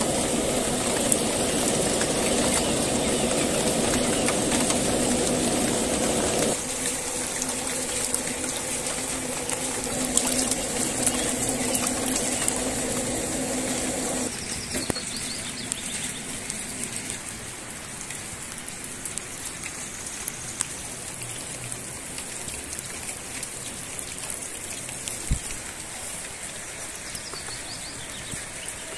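Steady rain hiss with birds chirping. A motor hum runs underneath for the first half, drops in level about six seconds in and stops about halfway through.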